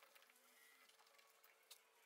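Near silence with a few faint light ticks of a small screwdriver turning small bolts in an aluminium cube, the clearest near the end, over a faint steady hum.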